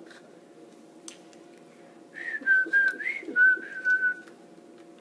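A person whistling a short wavering tune for about two seconds, starting about two seconds in. There is a faint click about a second in.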